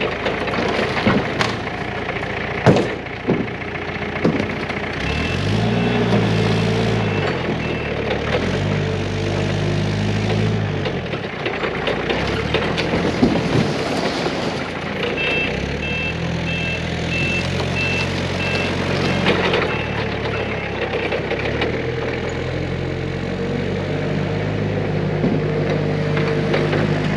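Forklift engine running and revving up and down in several runs as it works, with sharp knocks and cracks in the first few seconds as it crushes brittle old cone tanks. A pulsed high beeping comes and goes twice, like a back-up alarm.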